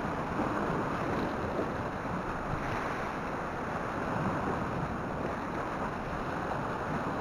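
Steady wash of sea surf on a rocky shore, mixed with wind buffeting the microphone.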